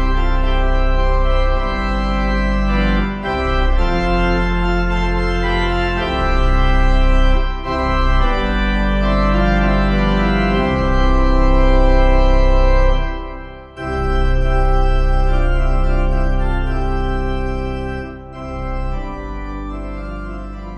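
Instrumental music of slow, held organ-like keyboard chords, changing every second or two, with a brief break about two-thirds of the way through.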